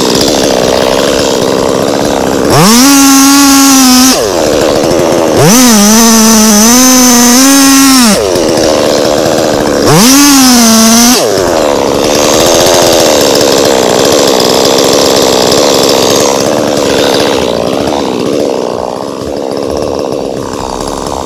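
Two-stroke chainsaw cutting into a hardwood trunk at the stump. It revs up high and holds there three times in the first eleven seconds, dropping back lower in between, then runs steadily and eases off toward the end.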